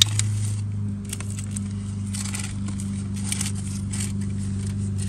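Filter wrench working at a stuck oil filter under the engine: scattered metal clicks and scrapes, with a steady low hum underneath.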